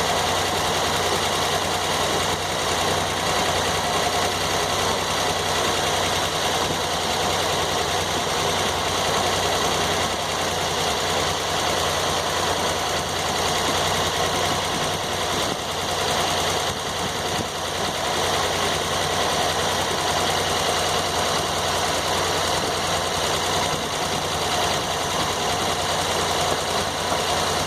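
Sawmill's engine running steadily, left on while nobody works the mill.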